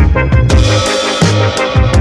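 Background music with a steady drum beat and a low bass line.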